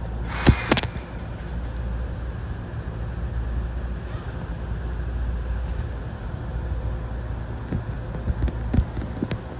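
Steady low hum inside a Tokyo Waterfront Area Rapid Transit 70-000 series commuter train car standing at a platform, with a few sharp clicks, the loudest about half a second in and more near the end.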